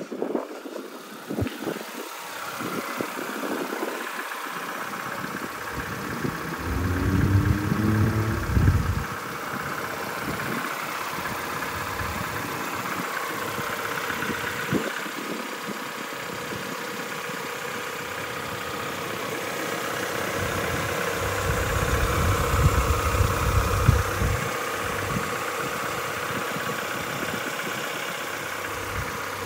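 A Honda Civic SiR's 1.6-litre DOHC VTEC four-cylinder engine idling steadily with the hood open. Low rumbling gusts of wind on the microphone come twice, about a third of the way in and again near three-quarters through.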